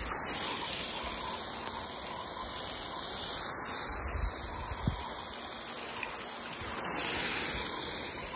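Steady hiss of water spraying from a Chapin hose-end sprayer onto grass, swelling louder for about a second near the end, with a small knock near the middle.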